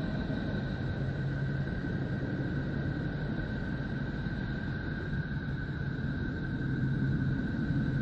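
Sonified "sound of Neptune": the planet's electromagnetic emissions converted into audio. It is a steady low rumbling drone with two faint, high, steady tones above it.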